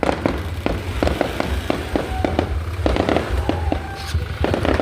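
Fireworks display: a rapid, continuous barrage of sharp cracks and pops over a constant deep booming rumble.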